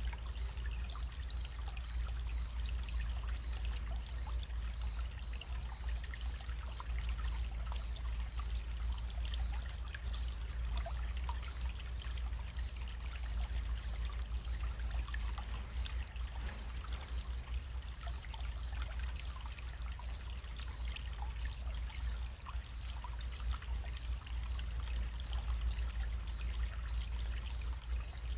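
Small stream running: a steady trickle of water with many small splashes, over a steady low rumble.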